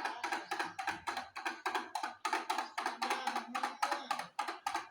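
A drum beaten in a fast, even rhythm, about five strokes a second.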